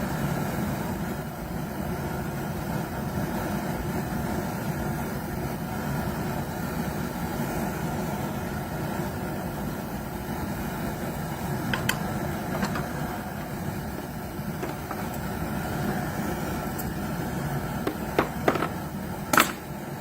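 Metal tool scraping dross off a pot of molten lead, with a few sharp metallic clicks and knocks, the loudest near the end, over a steady low rumble.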